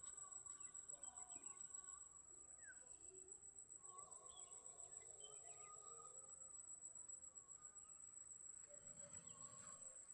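Near silence with faint rural ambience: a steady, high-pitched insect trill, with a few faint bird chirps scattered through it.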